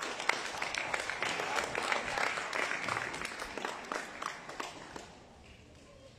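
Audience applauding, a quick patter of many hand claps that dies away about five seconds in.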